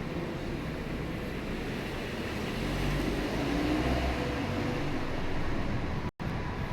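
Steady vehicle and road noise, with a low rumble swelling for a couple of seconds in the middle. Near the end the sound drops out for a split second.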